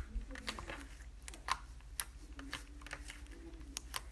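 Slime being squished and poked by hand, giving irregular sharp clicks and small pops.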